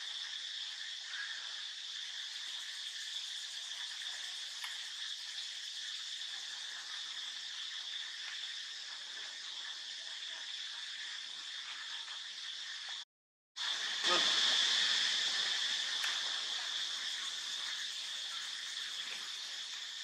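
Steady, high-pitched chorus of insects trilling. It cuts out for about half a second around the middle, then comes back louder and slowly eases back to its former level.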